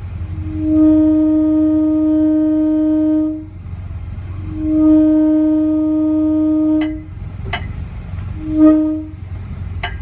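Nathan AirChime K5HA five-chime train horn, a mutt horn of sandcast and mixed-era bells, blown on compressed air: two long blasts of about three seconds each, then a short one near the end. A steady low hum runs underneath, with a few sharp clicks between blasts.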